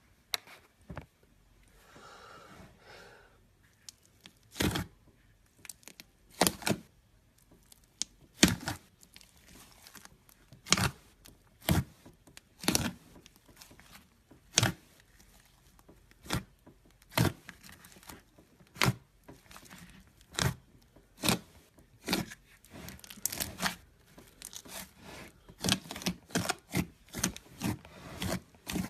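Glitter slime being squished in the hands, in a series of short crackly squelches about every second or two, coming faster and closer together near the end.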